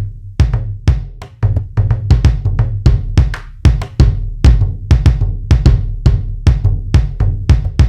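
Sampled drum strokes from the SwarPlug 4 Indian instrument plugin, playing a quick, uneven rhythmic pattern of about four strokes a second. Each stroke has a deep, pitched boom and a sharp bright attack.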